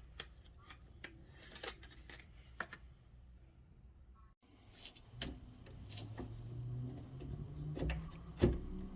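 Light clicks and rustles of small objects being handled, with a sharper knock near the end. About halfway through the sound cuts off abruptly, and a low steady hum comes in under the clicks.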